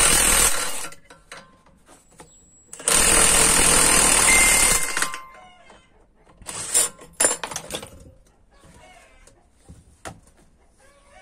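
Cordless impact gun hammering on the threaded rod of a coil-spring compressor, a short burst and then a steady burst of about two seconds, backing the compressor off a MacPherson strut spring. A few sharp metal clanks follow as the tool and compressor are handled.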